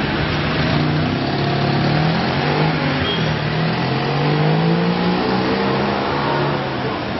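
A car engine accelerating, its pitch rising, dropping about three seconds in, then rising again before settling.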